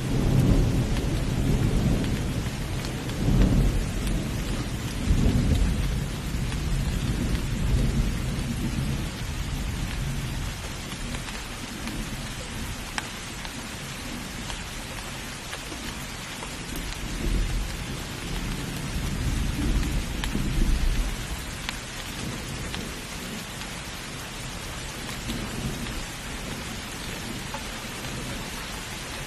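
Thunderstorm: steady rain hissing, with rolling thunder rumbling low. The thunder swells in several waves in the first few seconds, dies down, then rumbles again a little past halfway.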